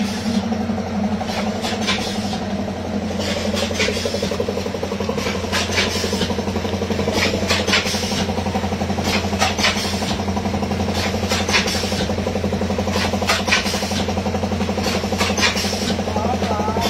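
Hopper-fed packet-packing machine running while it packs golgappas: a steady mechanical hum with a pair of sharp clicks about every two seconds as it cycles.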